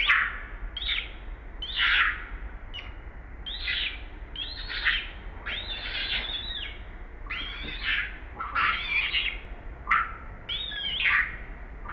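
Newborn baby macaque crying: a string of shrill, arching squeals, about one a second, some short and some drawn out.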